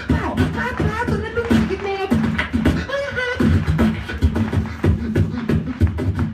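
A beatboxer's vocal percussion: kick and snare sounds in a steady rhythm, with a hummed, sung melody over the beat through about the first half.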